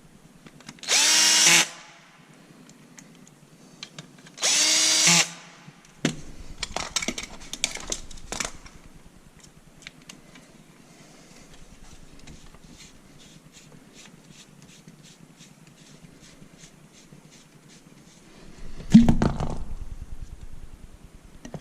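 Power drill run in two short bursts of about a second each, its whine rising as it spins up and then holding. Between and after the bursts come scattered clicks and light rattling, then a louder knocking clatter near the end.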